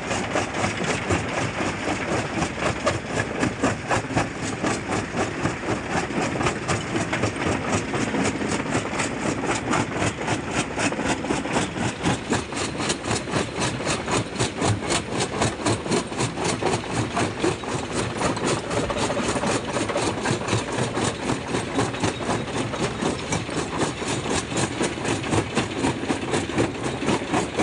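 Jaw crusher running and crushing rock, its moving jaw working against the ribbed fixed jaw plate in a fast, even pulse as stones break in the chamber.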